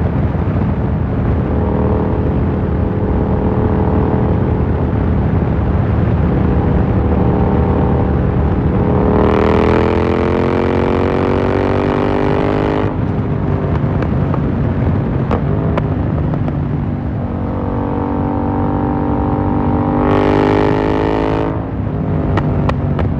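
Yamaha MT-07's parallel-twin engine through an Akrapovic carbon full exhaust, running steadily, then pulling hard with a rising note twice, about nine seconds in and again about seventeen seconds in. Each pull ends abruptly as the throttle closes, followed by a few sharp crackles from the exhaust.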